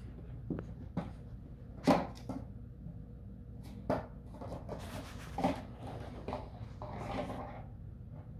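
Bernese mountain dog puppy chewing and carrying a crumpled plastic bottle: irregular plastic crinkles, crunches and knocks, with a longer stretch of crackling about seven seconds in.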